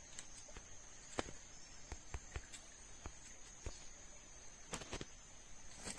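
Insects droning at a steady high pitch, with irregular small clicks and scrapes of a knife being worked by hand, carving something held in the hands.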